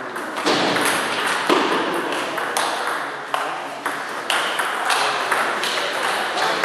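Table tennis ball being served and rallied, a sharp click each time it hits a paddle or the table, roughly one or two hits a second.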